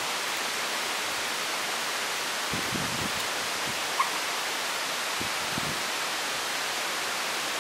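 Steady, even hiss of outdoor background noise, with one short, sharp note about four seconds in and a few faint low thumps.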